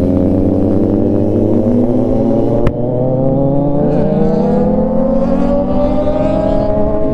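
Kawasaki Z900's inline-four engine running under way, then pulling up through the revs with its pitch climbing steadily and levelling off near the end. A single sharp click comes about a third of the way in.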